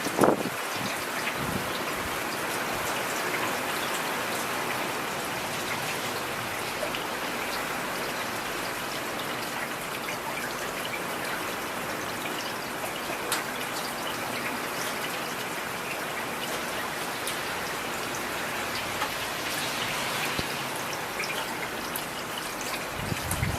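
Heavy rain falling steadily, an even hiss dotted with individual drop taps, with a short low thump just after the start.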